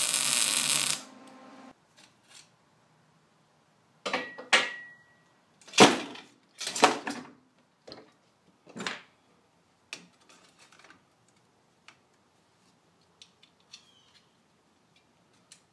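Electric arc welding on steel: a loud, steady crackling buzz for about a second, then dying away. After that comes a string of separate metal clanks and knocks from steel parts being handled. The loudest knock is about six seconds in, and an earlier one rings briefly.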